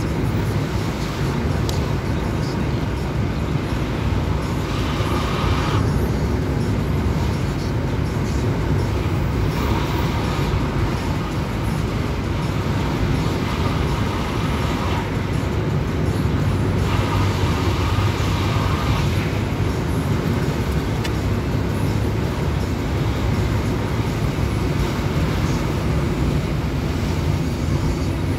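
Steady road and engine noise inside a moving car's cabin, with a few short swells of higher hiss.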